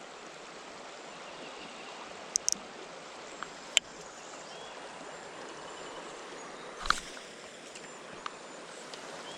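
Steady rush of flowing river water, with a handful of light clicks scattered through and a soft knock about seven seconds in.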